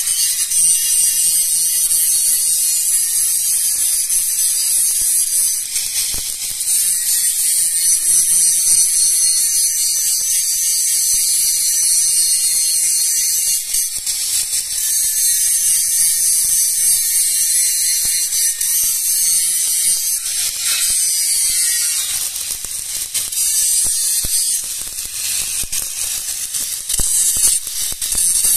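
Stick (shielded metal) arc welding with an E6013 electrode: the arc crackles and sizzles steadily as the second run is laid around the inside of a flange on galvanized pipe.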